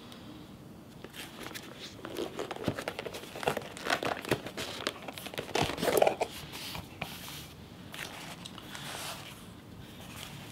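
Unboxing packaging handled by hand: a clear plastic sleeve crinkling and a cardboard box and its contents rustling and scraping, with irregular light clicks. The loudest handling comes about six seconds in.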